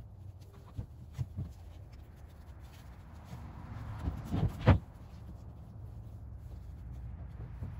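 Hand work in a fibreglass boat: light rubbing and scraping with a few small clicks, then a short louder clatter of knocks about halfway through as boards and tools are moved, over a low steady rumble.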